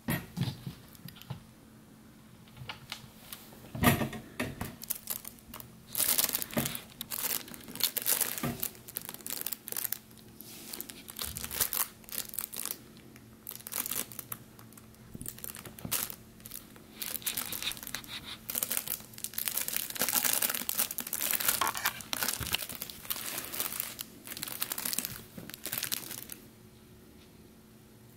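Crinkly fabric cat tunnel rustling and crackling in irregular bursts as a kitten inside it paws, rolls and wriggles, with a single thump about four seconds in.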